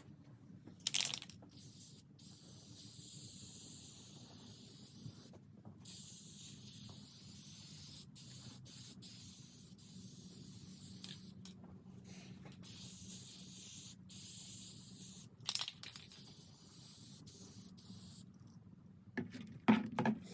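Aerosol spray-paint can hissing in repeated spurts of a few seconds each as the metal shield is painted, with short pauses between sprays and a few brief knocks.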